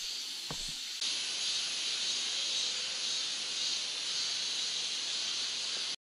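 A couple of footsteps on a rocky, leaf-strewn forest path in the first second, then a steady high hiss of forest ambience that cuts off suddenly at the end.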